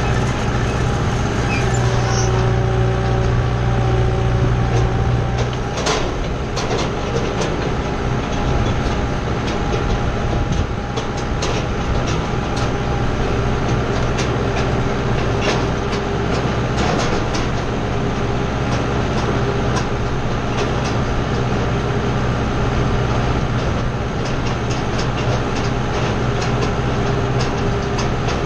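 Kubota tractor's diesel engine running steadily, with frequent clacks and rattles from the tractor and its hay wheel rake. A sharp clack comes about six seconds in, after which the engine's low note is a little weaker.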